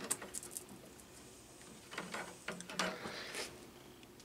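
Faint clicks and light rattles from an all-metal 9-inch desk fan being handled and set in place while switched off.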